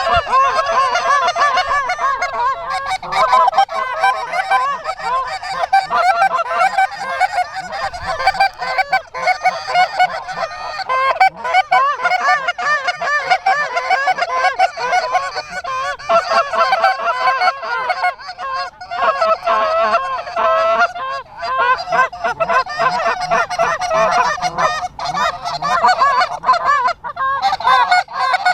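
Canada goose honking: many overlapping honks and clucks in a continuous din with no pause.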